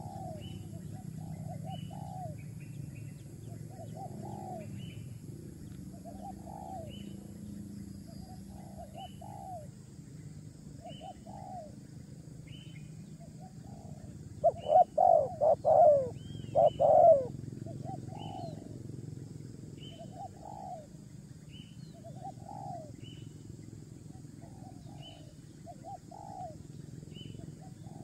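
A bird calling: a run of short, low, arched hooting notes repeated about once a second, louder and bunched together around the middle. Underneath are a steady low hum and a thin high whine.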